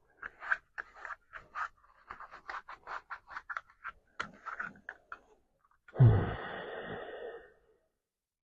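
Linen cloth rubbed in quick back-and-forth strokes along the edges of a plastic knife sheath, polishing them smooth. About six seconds in there is a louder knock with a short rasp after it.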